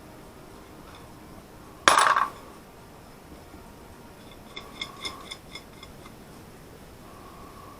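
Steel parts being handled at a workbench: one loud metal clank about two seconds in, then a handful of light ringing clinks of small metal pieces knocking together a few seconds later.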